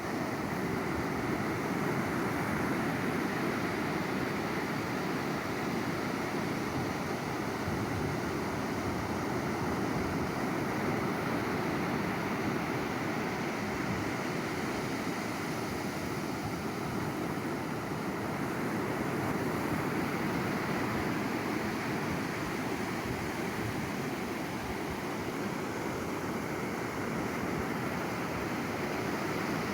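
Sea waves surging onto a shore, a steady rush of surf with no distinct breaks.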